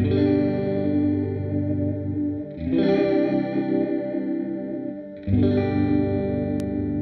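Electric guitar played through the Seesaw V2 pitch-shifter pedal: three chords, each struck and left to ring, about two and a half seconds apart, with a wavering, shifted-pitch shimmer. A small click near the end.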